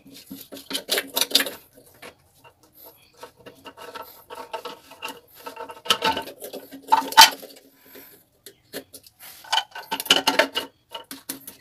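Plastic P-trap drain fittings handled and pushed onto a sink tailpipe by hand: scraping, rubbing and clicking of plastic, with sharper knocks about six and seven seconds in.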